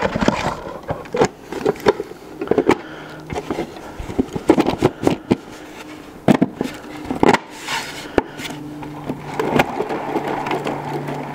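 Hard 3D-printed plastic parts of a small turbine housing knocking, clicking and scraping together as the top is pressed on and seated over its bearings: a run of irregular knocks, with a faint low hum in places.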